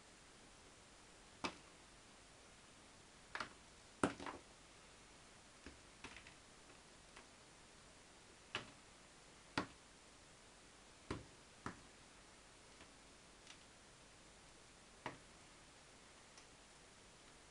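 Scattered soft clicks and crackles, about a dozen at irregular intervals, of old bark potting medium being picked and broken off a moth orchid's roots by hand, with near silence between them.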